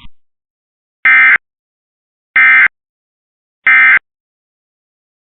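Emergency Alert System End of Message (EOM) data bursts: three short, identical bursts of warbling digital data tones, about 1.3 s apart, marking the end of the test alert.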